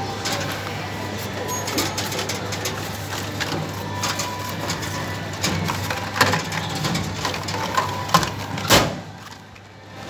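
Knocks and clicks of a hand working the pickup flap of a Hot Wheels vending machine to take out the purchased car, over a steady hum, with one loud knock near the end.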